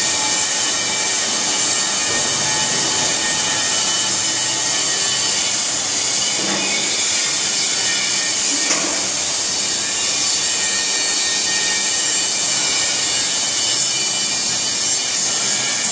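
Steady, loud din of machinery on a steel fabrication shop floor: an even hiss with several steady whining tones, and brief pitch sweeps twice, about six and nine seconds in.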